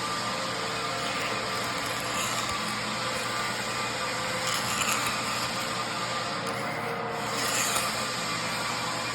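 Hand tool scraping along the bevel of an engineered wood floor, a steady rubbing and rasping over a constant low hum.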